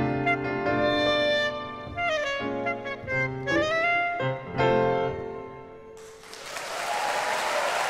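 Clarinet and piano playing, the clarinet sliding up and down in pitch on several notes; the last note fades out about five seconds in, and audience applause breaks out a second later.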